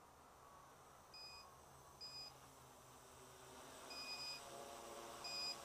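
MultiWii Pro quadcopter flight controller's buzzer beeping four times in short, high beeps at uneven intervals; the third beep is the longest. A lower hum of several even tones rises in pitch and grows louder in the second half.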